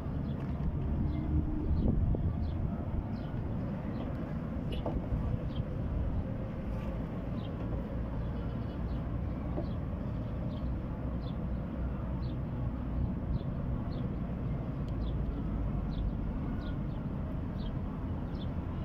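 Steady low rumble of street or traffic noise, with faint short high chirps repeating about once a second.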